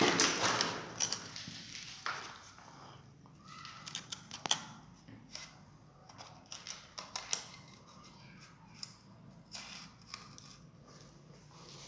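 Aluminium spirit level handled against a metal wall box set in wet mortar: a scrape as it is set in place, then scattered light taps and clicks as it is shifted to check the box is level.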